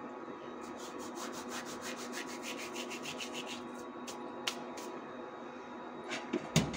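Cumin seeds rubbed between the fingers and sprinkled into a pot of curry: a quick run of soft, dry ticks lasting a few seconds. A few single clicks follow, then a louder knock near the end, all over a steady hum.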